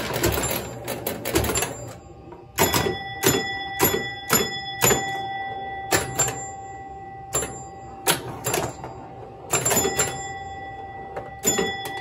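A 1968 Williams Lady Luck electromechanical pinball machine in play: a dense rattle in the first two seconds, then about a dozen sharp clacks of coils, bumpers and flippers, most followed by a ringing bell tone from the scoring chimes.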